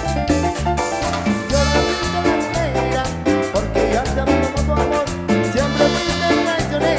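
Live cumbia band playing an instrumental stretch between sung lines, with a steady bass and drum beat under a melody line.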